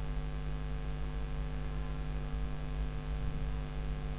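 Steady electrical mains hum with its overtones over a faint hiss, unchanging throughout.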